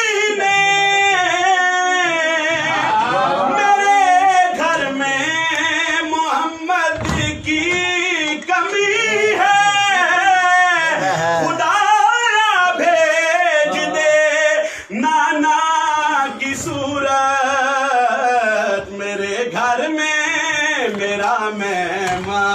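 A man's voice singing long, wavering, drawn-out melismatic phrases in the style of a devotional qaseeda recitation.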